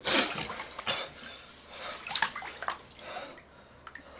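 Water splashing and sloshing in a filled bathtub as a person shifts in it: a loud splash at the very start, then a few smaller, scattered splashes.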